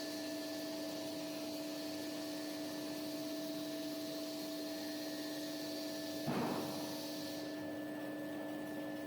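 Maxi roll paper band saw cutting machine running with a steady hum and a hiss that stops near the end. A single thud about six seconds in is the loudest sound.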